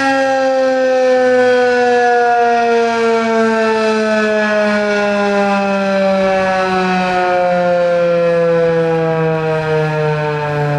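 Federal Signal 2001-SRNB rotating electromechanical warning siren winding down, one loud tone falling slowly and steadily in pitch throughout.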